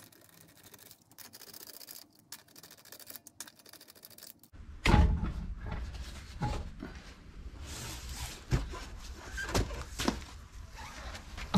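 Car wheel being taken off: faint handling of the lug nuts by hand, then about halfway through a heavy thunk as the alloy wheel and tyre come loose from the hub, followed by several lighter knocks and scuffs as the wheel is worked off the studs.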